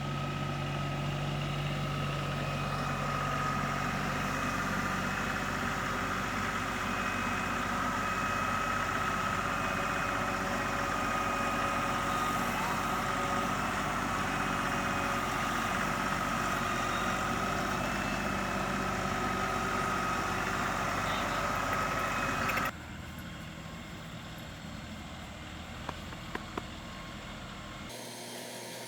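LS XR 3135 compact tractor's three-cylinder diesel engine running steadily, with a steady high whine over it. About 23 seconds in, it cuts off suddenly to a quieter, steady background with a few faint clicks.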